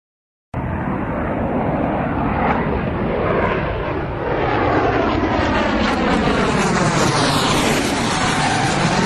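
Jet engines of an F/A-18 Hornet on a carrier landing, a loud steady rush that starts abruptly about half a second in, with whooshing tones sweeping up and down as the jet moves.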